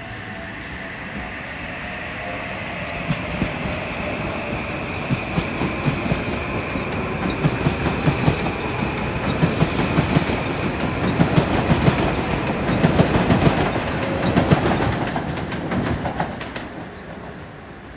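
Metro-North M8 electric multiple-unit train passing, its wheels clicking rapidly over rail joints while the rumble grows louder to a peak about fourteen seconds in, then fades away. A high steady whine from the train sounds in the first few seconds and dies out.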